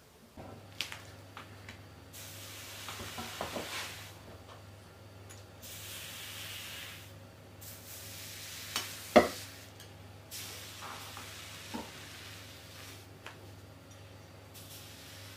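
Red-hot hatchet blade sizzling as it sinks into marshmallows, the hiss coming in stretches that start and stop abruptly. Scattered clicks and knocks come with it, the loudest a single sharp knock about nine seconds in.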